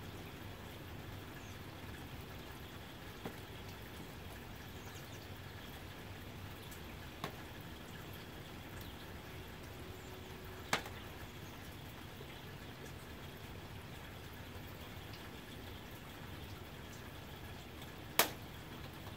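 Soft, steady rain, with a few sharp single drop strikes standing out; the loudest comes near the end.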